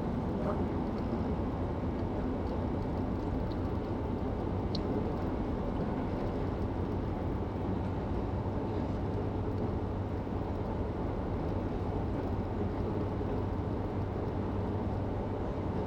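Steady road and engine noise of a car cruising along a highway, heard from inside the cabin: an even drone with a low hum and a few faint ticks.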